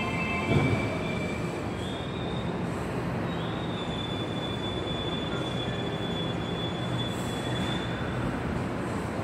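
Keio 9000 series electric train pulling into an underground platform and slowing, a steady rumble of wheels and running gear with a thump about half a second in. A high-pitched squeal holds steady for about four seconds in the middle.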